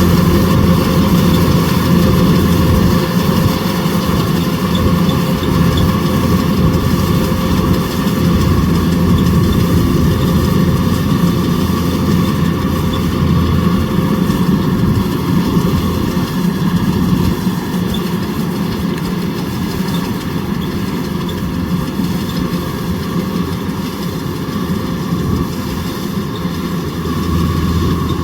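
Kubota DC105X combine harvester running steadily, its engine and machinery working at an even pace with little change in loudness.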